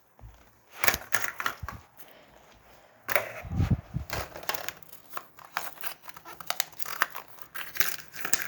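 Candy wrappers and plastic crinkling and tearing as they are handled and opened, in irregular crackles and clicks, with a duller bump about three and a half seconds in.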